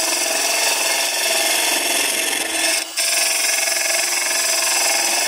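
Hunter Viceroy cupped carbide tool cutting into the end grain of a spinning wooden blank on a lathe: a steady, noisy hiss of shavings being cut as the tool is pushed straight in. It breaks off for a moment about three seconds in, with a click as it resumes.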